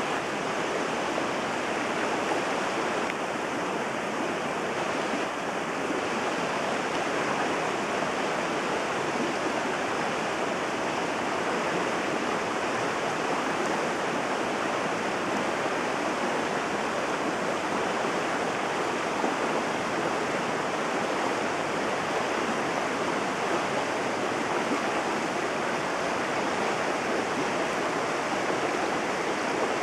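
Small mountain river rushing over rocks and little cascades: a steady, even rush of water.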